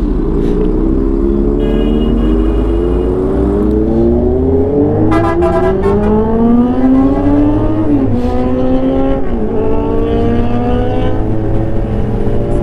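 Kawasaki Ninja 1000 inline-four engine pulling away and accelerating, its note rising steadily and then dropping sharply at gear changes about eight and nine and a half seconds in, over wind rumble on the helmet microphone. A brief high steady tone sounds about two seconds in.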